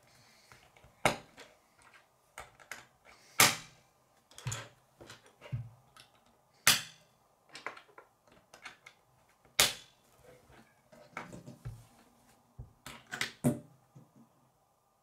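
Plastic K'nex rods snapping into connectors: irregular sharp clicks, the loudest about a second in, a third, halfway and two-thirds of the way through, with a quick cluster near the end and softer handling clicks between.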